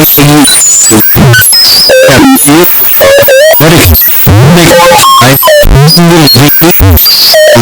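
Harsh, distorted electronic cacophony at full loudness: rapid chopped fragments of pitch-shifted, warbling tones and glides, cut off and restarted every fraction of a second.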